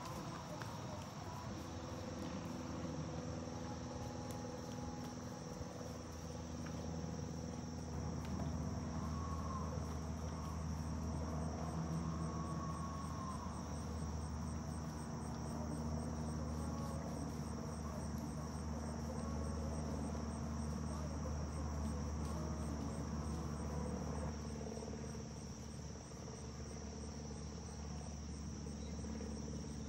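A steady high-pitched chorus of insects, with a low steady rumble underneath that grows a little louder in the middle.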